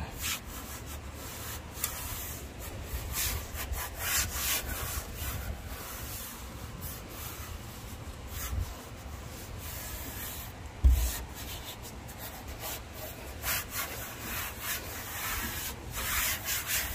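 Hands rubbing and pressing a sheet of adhesive-backed EVA foam decking down onto a boat floor, a run of irregular scuffing strokes, with a single thump about eleven seconds in.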